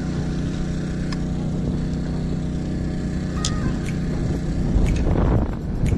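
Steady hum of the bowfishing boat's gasoline generators running the lights, with a few light knocks and a short rustling near the end.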